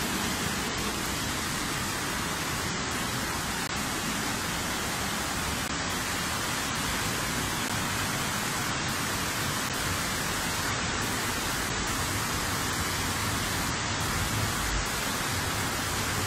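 Steady rushing hiss of heavy rain and fast-flowing floodwater, constant throughout.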